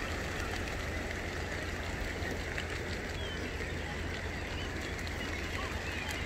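Large flock of cormorants taking off and flying low over the water: a steady rush of wingbeats and splashing, with scattered faint short bird calls and a steady low rumble underneath.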